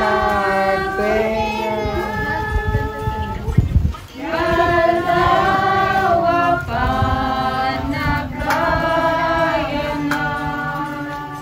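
A song of several voices singing long held notes, with a short break about four seconds in.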